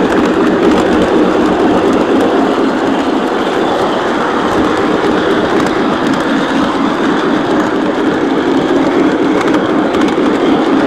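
O-scale Lionel model train running steadily along its track, heard close up from a camera riding on the train: a continuous rumble of wheels on rail with a low, steady motor hum underneath.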